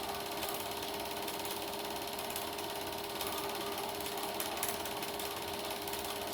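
Super 8 film projector running: a steady, fast mechanical clatter of the film transport over a constant motor hum.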